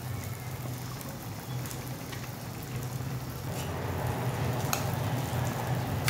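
Food cooking on the stove, a steady sizzling and bubbling that grows a little louder about halfway through. A steady low hum runs underneath, and a utensil clicks lightly a couple of times near the end.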